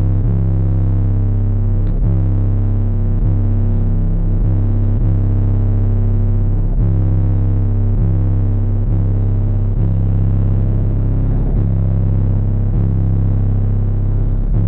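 Bass-heavy music played loud through a B2 Audio subwoofer system. Deep bass dominates, with a steady thumping beat.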